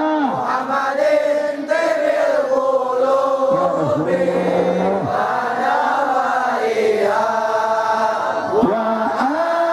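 Islamic devotional chanting by voices, sung in long held notes that glide slowly from pitch to pitch.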